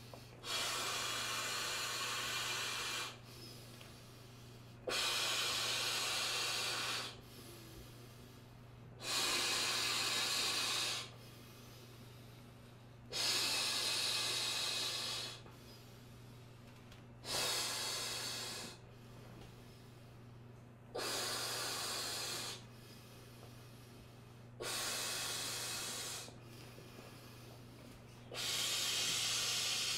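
A man blowing up an inflatable paddling pool by mouth: long, hissing breaths blown into the valve, about two seconds each, repeated roughly every four seconds, eight in all, with quieter pauses between as he draws breath.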